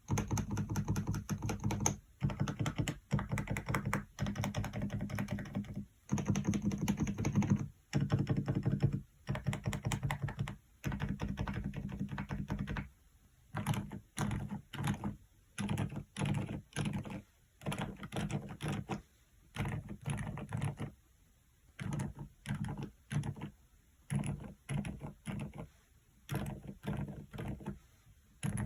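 Typing on a Dareu EK106 PRO full-size mechanical keyboard fitted with low-noise switches. The keystrokes come in fast continuous runs for about the first half, then in shorter bursts with brief pauses between them.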